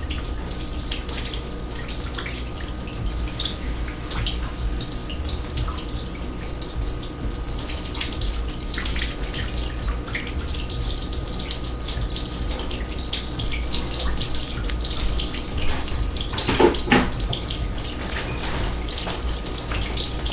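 Water running and splashing steadily as a kitchen sink overflows, with many small drips and splashes and one brief louder sound near the end.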